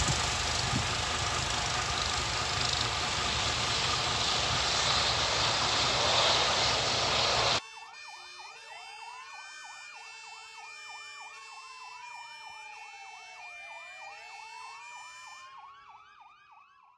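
Air ambulance helicopter, a Eurocopter EC135, taking off, with loud steady rotor and turbine noise. About seven and a half seconds in it cuts off abruptly. Quieter electronic sirens follow, wailing and yelping over repeating tones, and fade out at the end.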